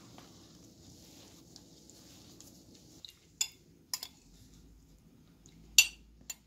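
Soft kneading of bulgur paste in a steel bowl, then four or five sharp clinks of a metal spoon against a ceramic bowl of chopped tomatoes, the loudest near the end.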